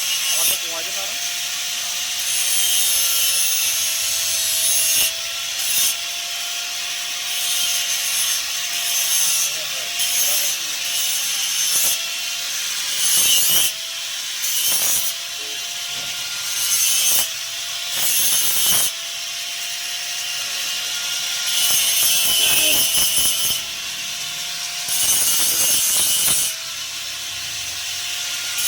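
Repeated scraping, rasping strokes of a tool working material, each lasting a second or two, over a faint steady tone.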